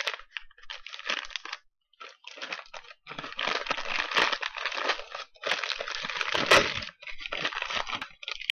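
Tissue paper rustling and crinkling in bursts as a wrapped gift is unwrapped by hand, longest and loudest through the middle few seconds.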